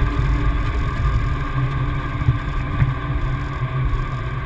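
Helicopter engine and rotor running steadily, heard from inside the cockpit: a continuous low drone with steady humming tones above it.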